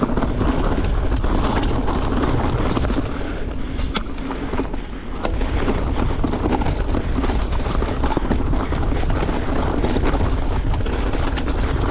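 Mountain bike rolling down a rough dirt trail: a steady low rumble of wind on the microphone and tyres on the ground, with frequent sharp rattles and knocks from the bike jolting over bumps. It eases a little for a moment about four to five seconds in.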